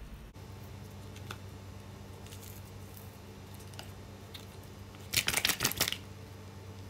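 Hands working lemon halves over raw chicken wings in a plastic tub, giving faint handling taps. About five seconds in comes a brief rattling clatter lasting under a second, over a low steady hum.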